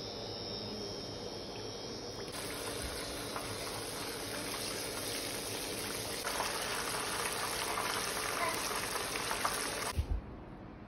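Flour-coated chicken deep-frying in hot oil in a pan: a steady, dense sizzle that grows fuller about two seconds in as the chicken goes into the oil. It cuts off suddenly near the end, followed by a couple of soft thumps.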